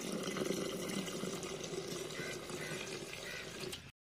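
A steady stream of water pouring into a black iron kadai of chopped raw lung, filling it so the pieces can be boiled and drained. The splashing is even and cuts off abruptly near the end.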